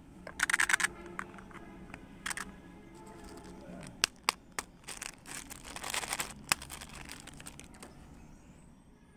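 A small plastic box of candy-coated chocolates handled with a brief rattle, then a plastic candy wrapper crinkling and tearing open, with a few sharp clicks.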